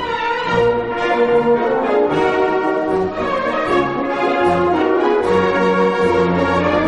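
Orchestral waltz music with prominent brass, horns carrying sustained melody notes over a changing accompaniment.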